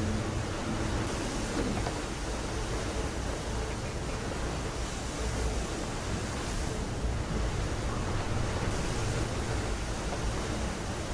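Steady rushing noise with a deep rumble, swelling a little every few seconds, like surging water.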